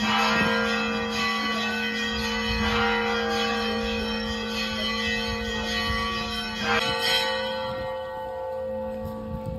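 Church bells ringing from a brick bell tower, several bells sounding together with a few fresh strikes. The last strike comes about seven seconds in, after which the ringing fades.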